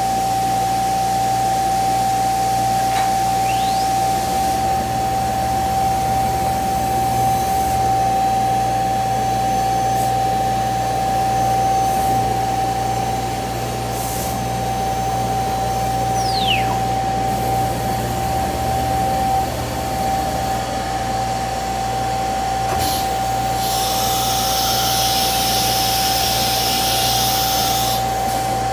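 CNC router running: a steady high whine over a constant rushing hum, with a few short whistling pitch glides and a louder hiss for a few seconds near the end.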